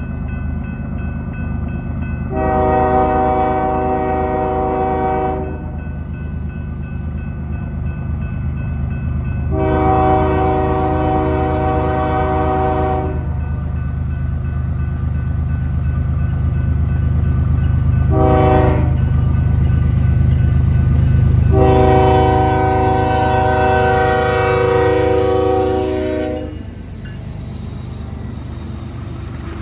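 Diesel freight locomotive horn sounding the grade-crossing signal: two long blasts, one short, then a final long blast. Under it, the low rumble of the approaching train builds until the locomotive passes near the end.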